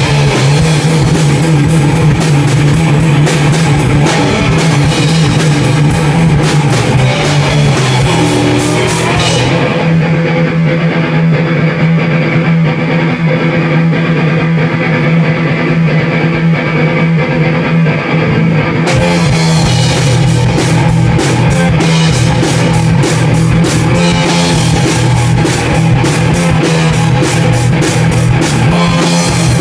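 Instrumental rock played live by a small band: electric guitar, bass guitar and drum kit. The cymbals and drums drop out for about ten seconds midway, leaving guitar and bass, then come back in.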